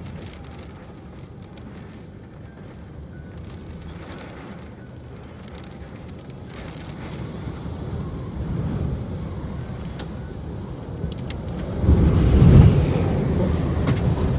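Typhoon wind blowing in gusts with a rumble on the microphone, slowly building and then surging to a loud gust about twelve seconds in.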